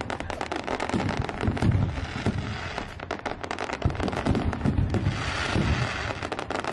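Fireworks display: aerial shells bursting with deep bangs under a dense, rapid crackling from crackle stars.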